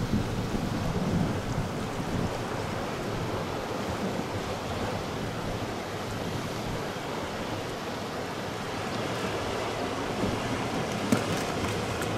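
Steady wash of sea surf against a rocky shore, with wind noise on the microphone; a single sharp click about eleven seconds in.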